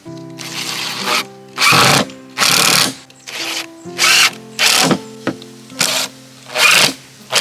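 Cordless drill run into a wooden board in about nine short, loud bursts, each under a second, with brief pauses between.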